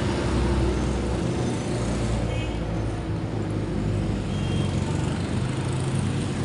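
Steady street traffic noise, with low rumbling buffets of wind on the phone's microphone.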